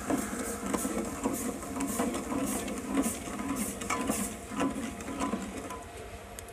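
Metal spoon stirring sugar into warm milk in a steel pot, scraping and swishing against the pot about twice a second. The strokes die away near the end.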